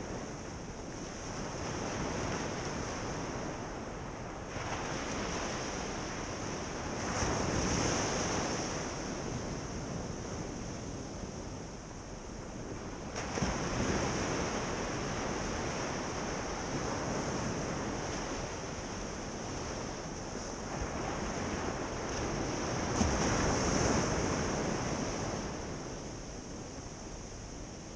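Ocean surf on a beach: a steady wash of waves, swelling three times as bigger waves break, the last one near the end the loudest.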